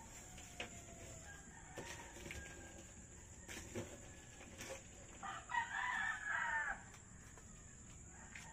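A rooster crows once, about five seconds in, for about a second and a half, over scattered light knocks.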